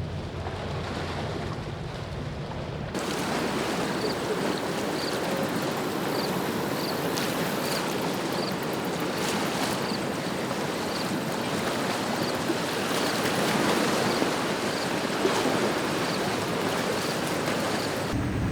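A patrol boat's engine rumbling low at first. About three seconds in it cuts to a loud, steady rush of water and wind as a boat runs at speed through the water.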